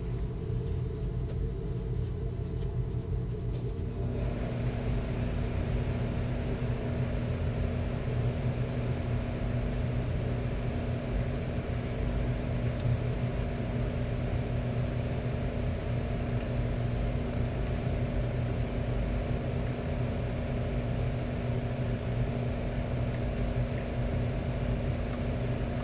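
Steady mechanical hum with a low drone, joined about four seconds in by a constant rushing hiss like a fan or blower coming on.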